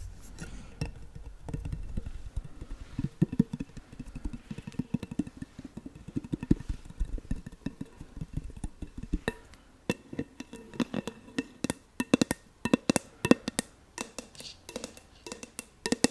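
Fingernails tapping and scratching on a jar candle in quick, irregular taps for ASMR. The taps are soft and dull at first and turn sharper and more clicky about two-thirds of the way through.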